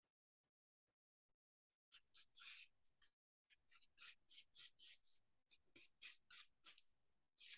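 Paintbrush bristles dragged back and forth across a painted wooden cutout: a run of short, faint swishes, about three a second, starting about two seconds in.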